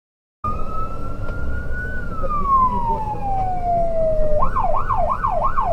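Fire engine's electronic siren heard from inside the crew cab over engine and road rumble: a long wail that climbs slightly, then falls slowly, switching about four seconds in to a fast yelp of nearly three sweeps a second.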